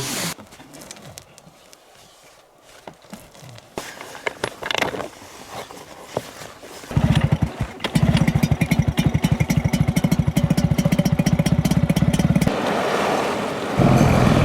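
Small outboard motor on a boat starting about halfway in and running with a fast, even putter. Before it, only faint clicks and knocks of handling.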